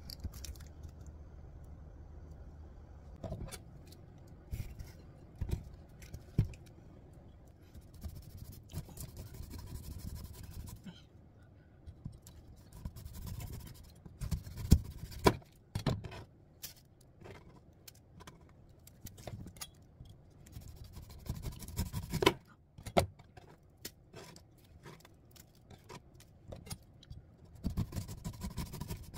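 Knife cutting and scraping the tough skin off a whole pineapple: irregular crunching strokes through the rind and knocks on the cutting board, with a couple of louder strokes partway through.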